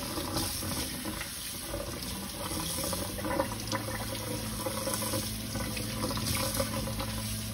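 Kitchen faucet running steadily onto a wooden cutting board held under the stream, water splashing off the board into a stainless steel sink as the soap is rinsed off.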